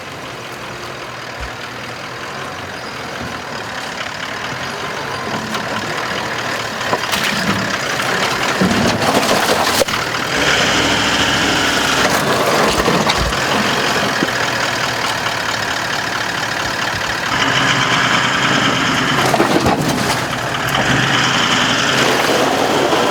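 Four-wheel-drive vehicle engine running, growing louder over the first ten seconds or so and then holding steady.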